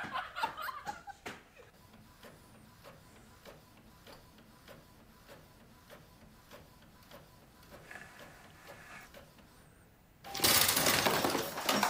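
Faint clicking and whirring of a printer working, heard through the compilation's audio. About ten seconds in, a sudden loud burst of noise cuts in and lasts under two seconds.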